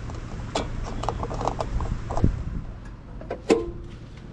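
Refuelling at a gas station pump: a steady low hum with scattered mechanical clicks and knocks from the pump and nozzle, and a sharper metallic clank with a brief ring about three and a half seconds in.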